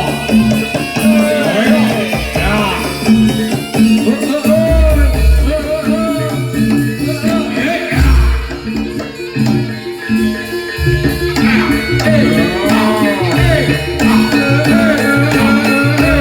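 Loud traditional Javanese barongan accompaniment music: deep drum hits and repeating pitched percussion notes under a melody that bends up and down.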